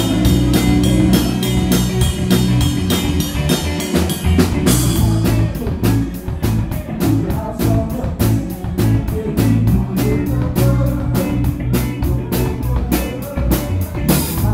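A live wedding band playing an upbeat pop-rock cover on drum kit and electric guitar, with a steady, quick drumbeat.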